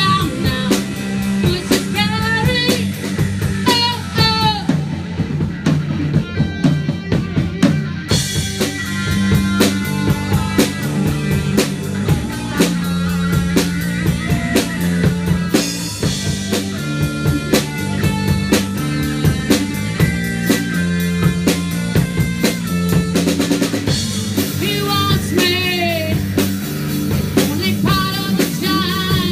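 Live rock band playing: drum kit and electric guitars, with a woman singing in the first few seconds and again near the end, and an instrumental stretch in between.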